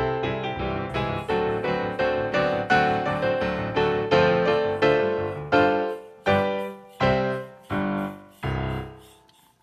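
Background piano music: a gentle run of struck notes that thins near the end to a few separate chords, each dying away, before the music fades out.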